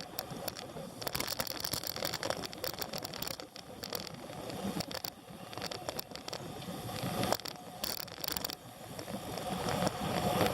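Irregular rattling and clicking over a steady rushing noise from a vehicle in motion, growing louder near the end.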